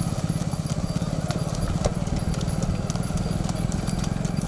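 Several motorcycles running slowly in low gear, their engines puttering steadily, with the hooves of a young trotting bull clopping on a dirt road.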